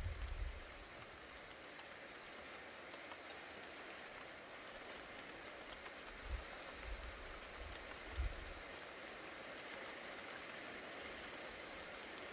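Steady hiss of rain in a thunderstorm. A low rumble of thunder dies away in the first second, and two brief low thumps come about six and eight seconds in.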